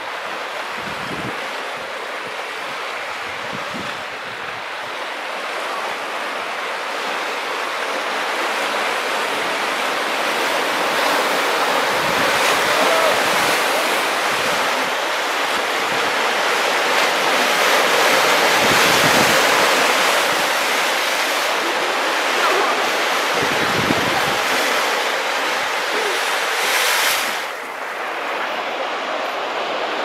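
Sea surf washing and breaking over rocks: a steady rushing wash that swells louder toward the middle and drops away suddenly near the end.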